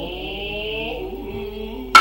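Noh chorus chanting in unison, with a high, wavering flute line above the voices. Near the end a single sharp hand-drum stroke cracks out and rings briefly.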